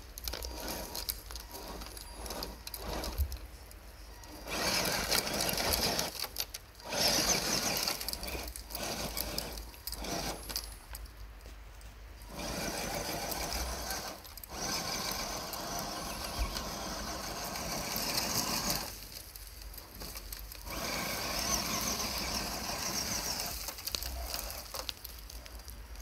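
Radio-controlled rock crawler's electric motor and gearbox running. It drives in about five runs of a few seconds each, with brief stops between them.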